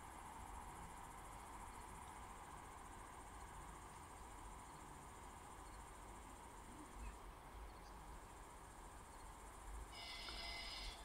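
Near silence: faint outdoor night ambience with a steady low hum, and a brief high-pitched tone near the end.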